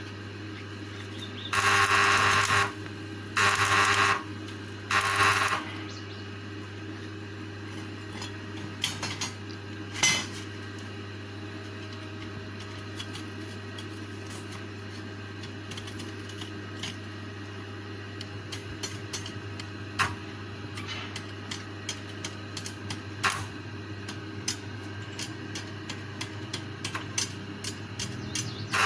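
A small power tool runs in three short bursts of about a second each, then comes a scatter of sharp metallic clicks and taps from hand work on the cage parts. A steady low hum runs underneath.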